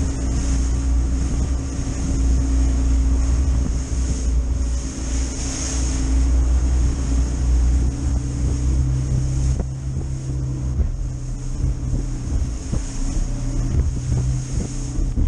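Outboard motor running as an aluminium boat drives across choppy open water, with wind buffeting the microphone and the hull knocking and throwing spray through the chop.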